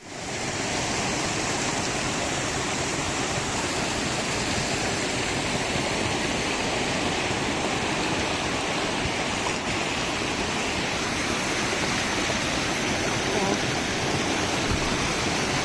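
Small mountain stream rushing and splashing over rocks, heard up close: a steady, even rush of water.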